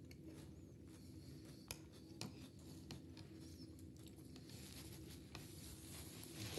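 Near silence: room tone with a steady low hum and a few faint clicks, the two clearest about two seconds in.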